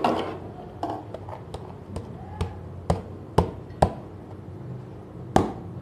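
A series of sharp taps of kitchen utensils, a metal spoon and a plastic bowl, knocking against a steel cooking pot as boiled rice is tipped and scraped into it. The taps come roughly two a second, then a short pause before one last knock near the end.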